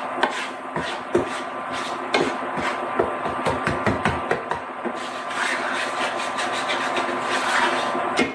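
A spatula stirring and scraping a flour-and-bacon-grease roux around a skillet: continuous rasping strokes with frequent light knocks against the pan.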